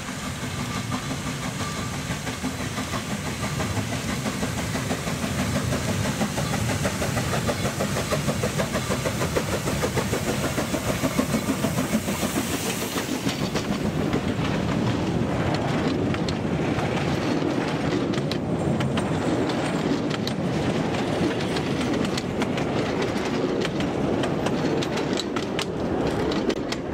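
Narrow-gauge steam locomotive, the 1945 Franco-Belge 0-4-0 tank engine, hauling a train past at close range. Its rhythmic exhaust beats grow louder over the first dozen seconds. Then the wagons roll by with a clickety-clack over the rail joints, dropping away near the end.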